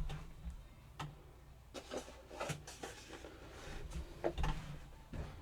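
Faint, scattered light clicks and knocks of tools being handled and set into a wooden tool chest, with a few quick knocks together about four seconds in.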